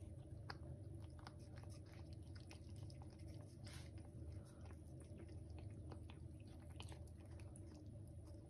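A cat eating wet food from a bowl: faint, irregular small clicks and smacks of chewing and licking.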